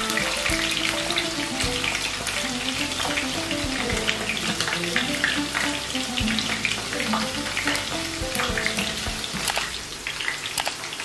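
Chicken pieces and thin potato slices deep-frying in hot oil in a pan, sizzling with a dense crackle of small pops. Soft background music runs underneath.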